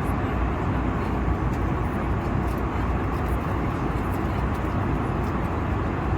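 Steady cabin noise of an airliner in flight: an even, low rush of jet engines and airflow.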